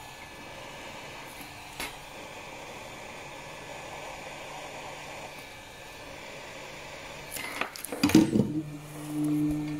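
Tools and phone parts handled on a repair bench: a single click early, then a burst of clicks and clattering knocks about eight seconds in, after which a low steady electrical hum starts.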